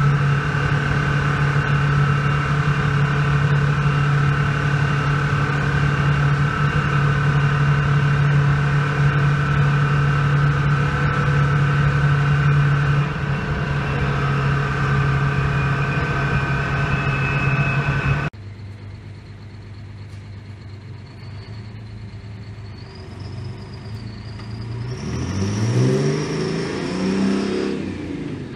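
Detroit Diesel engine of a four-axle FTF semi truck running steadily at cruising speed in a road tunnel, a loud even drone heard from the cab. About two-thirds through it cuts to a quieter outdoor scene, where a truck's diesel engine revs up near the end, rising in pitch.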